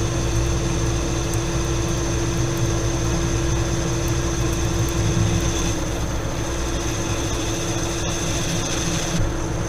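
Metal lathe running under a cut, an insert tool taking a 20-thou-deep pass in 1018 steel: a steady motor-and-gear rumble with a constant whine over the cutting noise.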